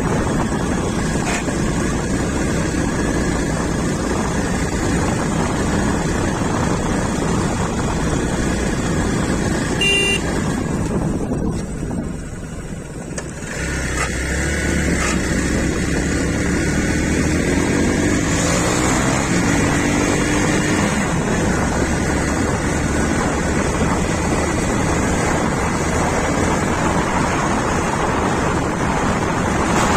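Hero Xpulse 200 single-cylinder dual-sport motorcycle being ridden, its engine running under wind rush on the microphone. The sound dips briefly around a dozen seconds in, then the engine note rises and falls as the rider works the throttle.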